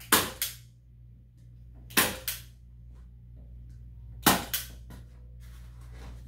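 A hand staple gun driving staples through canvas into a wooden stretcher bar, three times about two seconds apart. Each firing is a sharp snap followed by a second, slightly softer snap about a third of a second later.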